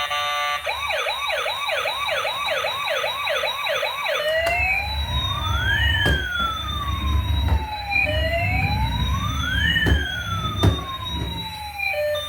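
Electronic siren of a toy emergency vehicle: a fast yelping siren for about four seconds, then a slower rising-and-falling wail. A low rumble and a few sharp knocks run under the wail.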